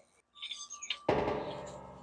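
A short music sting: a sudden struck chord about a second in that rings on and slowly fades.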